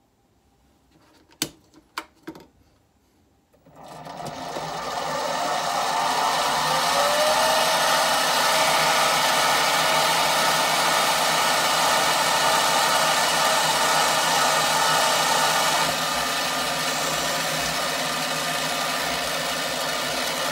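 A few clicks, then a small bench lathe starts about four seconds in and comes up to speed with a rising whine. It runs steadily while a light finishing cut of about 0.4 mm is taken on an ebonite pen section, and its sound drops slightly in level about two-thirds of the way through.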